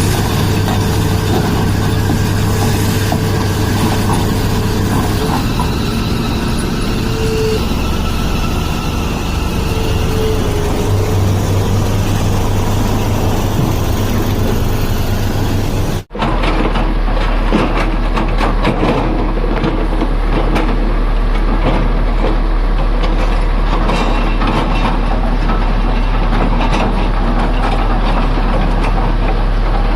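Tata Hitachi excavator's engine running steadily, with the recording cutting about halfway through to another stretch of the same steady machine noise.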